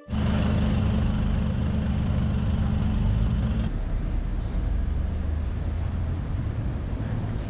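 Steady outdoor street noise with a low rumble of traffic and engines. The sound changes suddenly a little over three and a half seconds in, to a thinner steady background noise.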